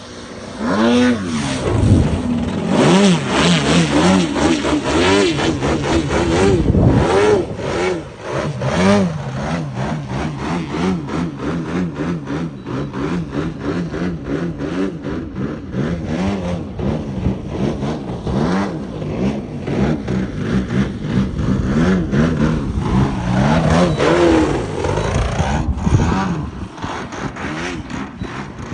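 Engine of an RC model aerobatic airplane running in flight, its pitch repeatedly rising and falling with throttle changes and passes. Wind buffets the microphone throughout.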